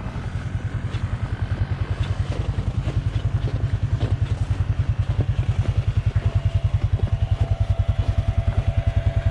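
A four-wheeler's engine idling with an even low chugging at about nine beats a second, growing a little louder. A faint steady whine comes in about six seconds in.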